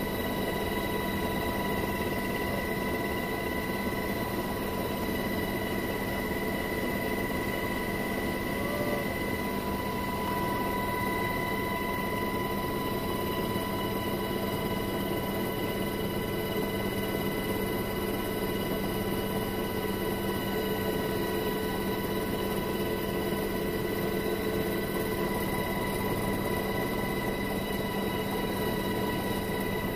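Steady in-flight cabin noise of a military transport helicopter, heard from inside: a constant drone of engines and rotors with a high, unchanging whine over it.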